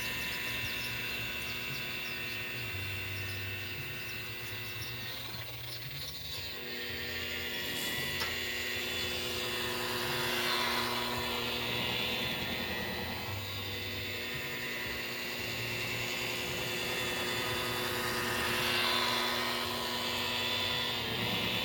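Electric polishing buffer running steadily with a motor whine, getting louder twice, about halfway through and again near the end.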